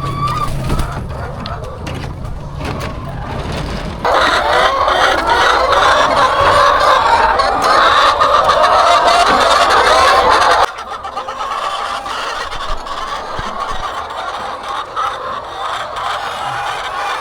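A flock of hens clucking, with scattered small knocks and clicks. From about four seconds in to about eleven seconds the clucking becomes a much louder, dense chorus, which starts and stops abruptly.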